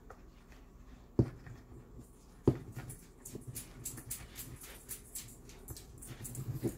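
Hand sewing-awl work on a heavy backpack strap: two sharp knocks, then a run of quick scratchy rasps as the needle and thread work through the thick material.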